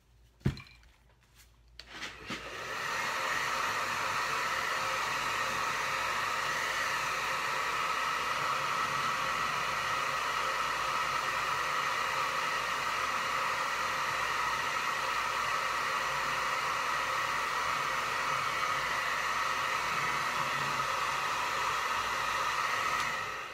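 A short knock about half a second in, then a handheld hair dryer switches on, runs at a steady pitch and level while drying paint, and switches off near the end.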